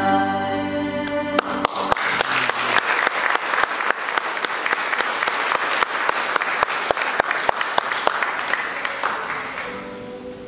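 The last held chord of a stage song cuts off about a second and a half in, and the audience bursts into applause, a dense clapping with single claps standing out. The applause fades away near the end as soft music begins.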